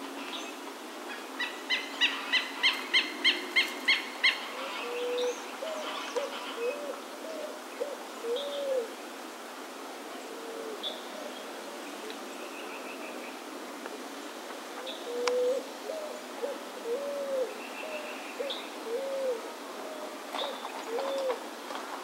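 Green-barred woodpecker calling: a quick run of about nine loud, high notes, roughly three a second. Later come two runs of low notes from another bird, each note rising and falling.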